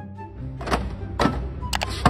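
Background music, joined about a third of the way in by sharp knocks: about three of them, the last two close together.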